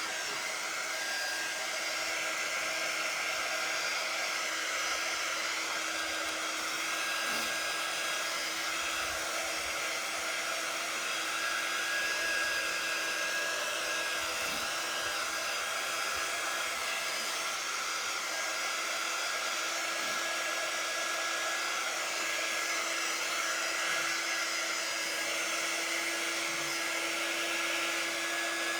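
Hand-held hair dryer blowing steadily, a constant rush of air with a steady hum and a thin whine.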